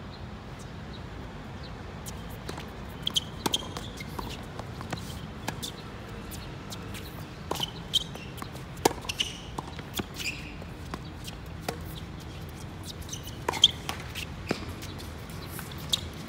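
Scattered sharp knocks and taps with several short high squeaks, over a steady low background rumble.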